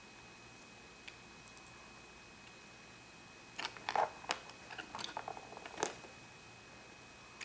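Small plastic pieces of a Pocket Lock-It Minnie Mouse playset clicking and knocking as they are handled and set onto the plastic house: one click about a second in, then a run of clicks and clatter from about three and a half to six seconds in.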